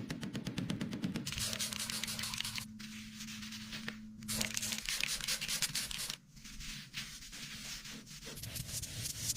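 Sanding: abrasive scraping over a surface in long strokes, with short breaks about three and four seconds in and a longer one about six seconds in. A steady hum runs under it for a few seconds near the start.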